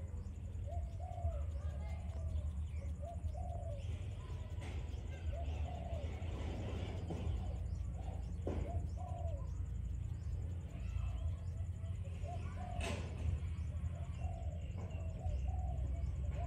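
Bird calls, cooing like a dove, repeated every second or two over a steady low rumble, with a sharp click about thirteen seconds in.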